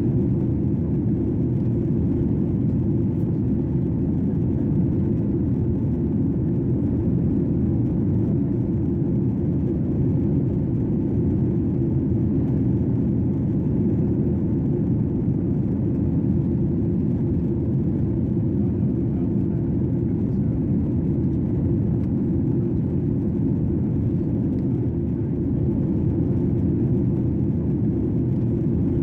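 Airplane cabin noise in flight: the engines and rushing air heard from inside the cabin as a steady, even low rumble.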